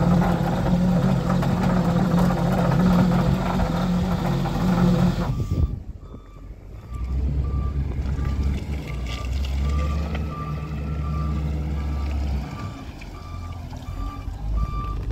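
A wheel loader running its beet washing-and-chopping bucket, a loud steady machine hum with churning noise. After a cut about five and a half seconds in, the loader's engine rumbles low while its reversing alarm beeps steadily, a little under two beeps a second.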